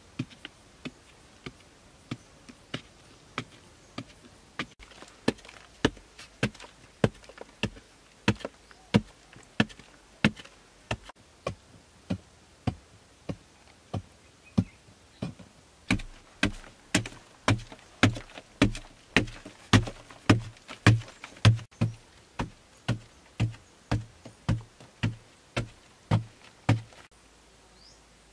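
A hand tool striking into packed earth over and over, digging out the soil, about two blows a second. From about halfway through, the blows are louder with a deeper thud. They stop shortly before the end.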